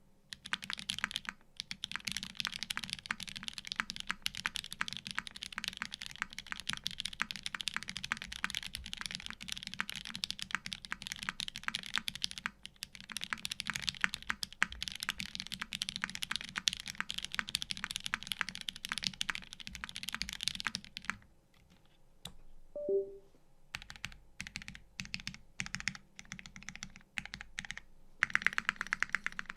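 Fast, continuous typing on a custom mechanical keyboard with lubed vintage Cherry MX Black linear switches in a stainless steel plate, under GMK keycaps. The typing stops for about two seconds two-thirds of the way through, then resumes.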